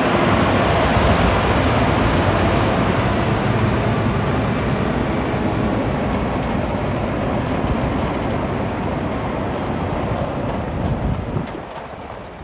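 Diesel engine of a 2014 Mack concrete truck running with a steady, dense low rumble that drops away about a second before the end.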